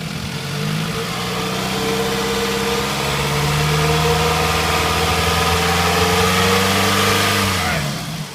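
2005 Scion tC's 2.4-litre four-cylinder engine running with a steady drone. The pitch steps up about half a second in, holds, and drops away near the end, as the car is checked for a grinding noise on a cold start.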